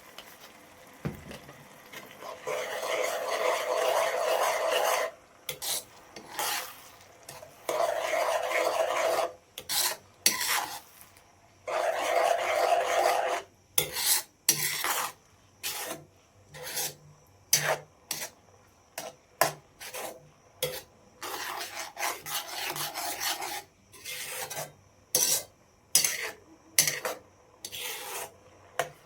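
Repeated rasping, scraping strokes of something hard being rubbed against a surface: three long strokes of about two seconds each in the first half, then many quicker short strokes.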